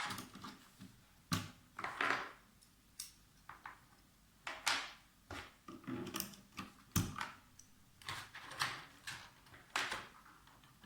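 Sharp plastic clicks and clacks at uneven intervals as stabilized keycaps are pried off a mechanical keyboard with a wire keycap puller and set down.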